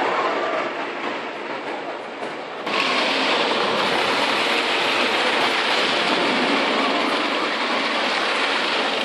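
A Wodan Timbur Coaster train rolling along its wooden track, a steady rattling rumble. It gets abruptly louder about three seconds in.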